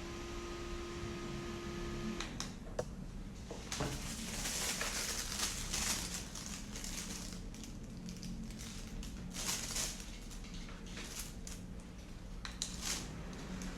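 Handheld mini fan being handled: a steady hum stops about two seconds in, followed by a few sharp clicks and several bursts of rustling and crinkling.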